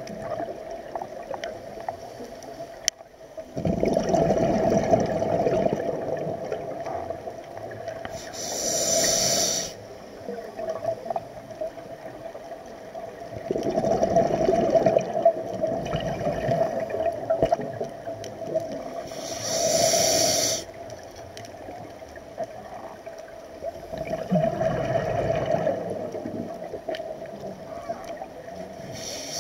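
Scuba diver breathing through a regulator underwater: long bubbling exhalations alternate with short hissing inhalations, a full breath about every ten seconds, over a steady hum.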